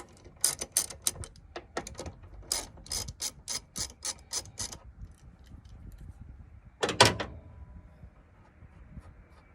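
A hand ratchet clicking in quick strokes, about three or four clicks a second, as it loosens the clamp nut on a car battery's negative terminal; the clicking stops after about five seconds, and a single louder metallic clack follows about two seconds later.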